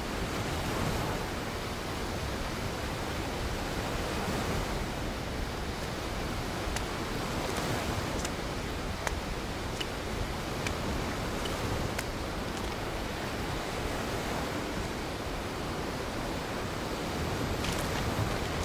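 Steady rush of sea surf and wind, with scattered sharp clicks of beach cobbles knocking together underfoot, a few more of them near the end.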